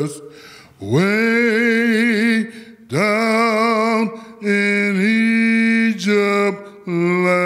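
A man singing unaccompanied into a microphone, a slow chant of long held notes, some with a wavering vibrato, in five short phrases with brief breaks between them.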